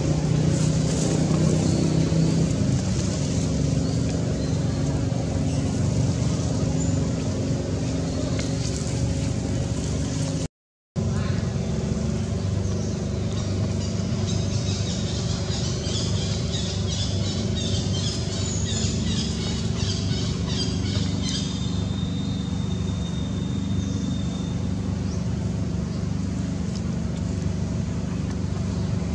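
A steady low mechanical hum of constant pitch, like a motor running, broken only by a brief cut about a third of the way in. A high pulsing buzz rises over it for several seconds around the middle, followed by a thin high whistle-like tone.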